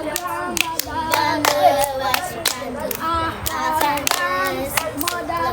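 Children singing a hand-clapping game song, with many sharp hand claps keeping time under their voices.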